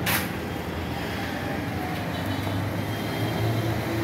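A steady low engine-like rumble, stronger near the end, with a sharp click at the very start.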